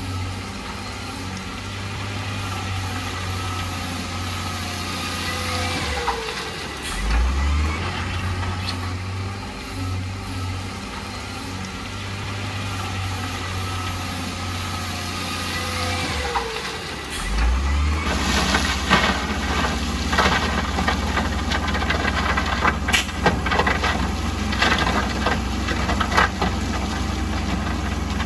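Heavy diesel construction machinery running. The engine pitch falls twice, each time followed by a low thud. From about 18 seconds in, the engine note turns rougher and busier, with many sharp knocks and clatters.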